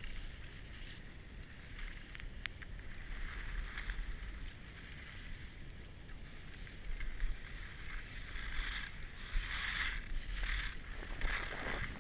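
Skis sliding and scraping over packed snow through a series of turns, with wind rumbling on a helmet-mounted camera microphone. The swishing scrapes grow louder and more frequent about two-thirds of the way in.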